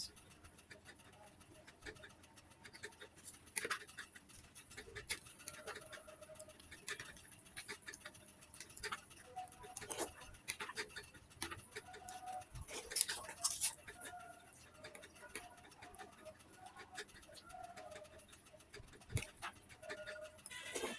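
Eating sounds: a spoon clicking and scraping on a plate, with chewing. A dove coos faintly now and then in the background.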